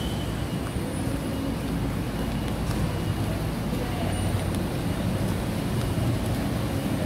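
Buses idling and moving in a bus interchange: a steady, even low rumble.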